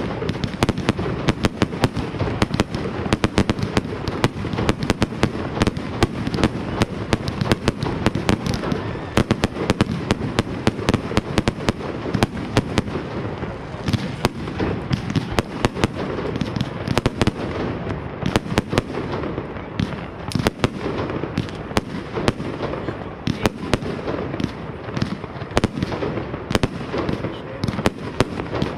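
New Year's Eve fireworks going off in a dense, unbroken barrage: many sharp bangs and crackles a second, with no let-up.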